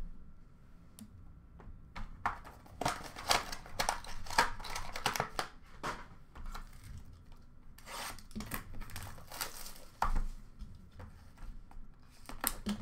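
Plastic and foil trading-card wrappers crinkling and tearing as packs are handled and opened, in a run of irregular rustles, with a dull knock about ten seconds in.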